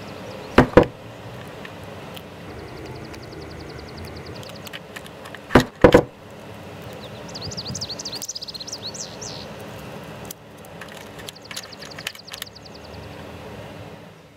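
Small plastic miniature toy pieces being handled: a tiny plastic shopping basket and its packets knock sharply twice, each time as a quick double clack, with light crinkling and ticking of a small plastic food packet in between.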